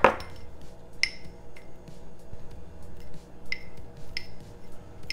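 Table knife clinking against a ceramic mug while spreading Nutella on a mug cake: a sharp knock right at the start, then about five light, short clinks at irregular intervals.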